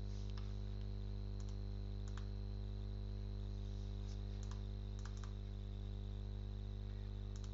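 A few faint, scattered computer keyboard and mouse clicks over a steady low electrical hum.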